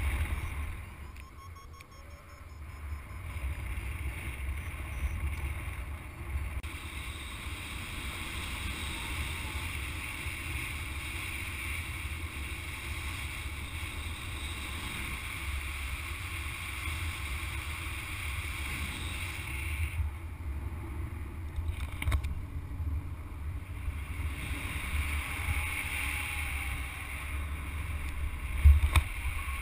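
Steady rush of flight wind buffeting the microphone of a paraglider's action camera. It is a low rumble with an even hiss above it, with a few stronger gusts near the end.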